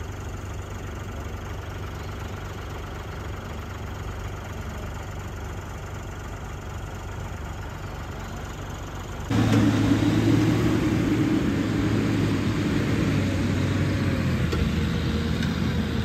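Engine of a borewell drilling rig truck running steadily; about nine seconds in it abruptly becomes louder and heavier, running hard until the end.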